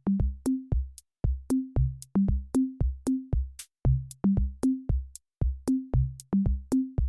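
Electronic background music: a drum-machine beat of short pitched bass-drum hits stepping between a few low notes, each with a sharp click, about three to four a second.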